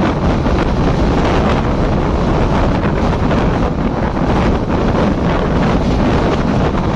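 Steady wind rush buffeting the microphone, mixed with the running rumble of a passenger train at high speed, heard at an open coach door.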